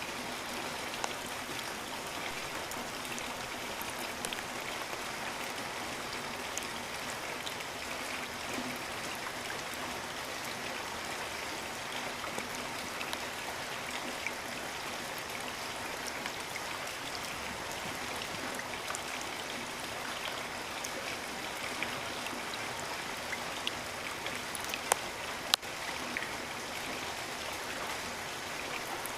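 Steady rainfall with individual drops ticking, and a couple of sharper drop hits near the end.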